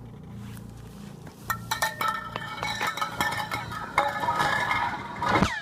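Chunk of ice falling down an ice borehole in a glacier: a quick run of sharp, ringing clinks and pings as it scrapes and rattles down the hole. Near the end comes a loud, fast downward-sweeping 'ricochet' chirp, the sound of the ice hitting the bottom travelling back up the hole.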